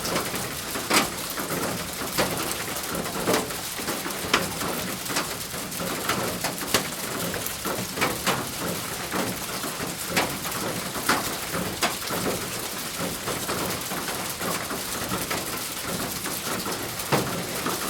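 Rain falling on a thin roof: a steady dense patter, with heavier single drops striking louder every second or so.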